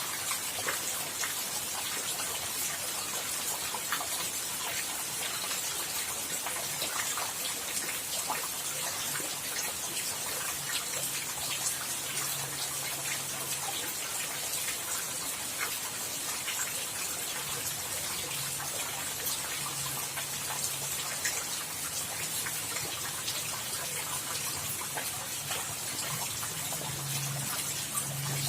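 Steady rain falling, a continuous hiss dotted with the ticks of individual drops hitting a surface. A faint low hum comes and goes in the second half.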